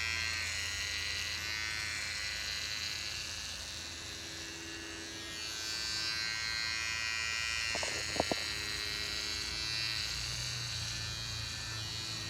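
Electric hair clippers buzzing steadily while cutting hair, the level dipping slightly partway through, with two brief clicks about two-thirds of the way in.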